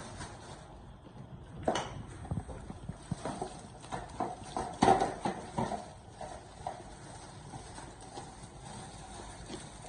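A run of irregular light knocks and clicks, starting about two seconds in and stopping about six seconds in.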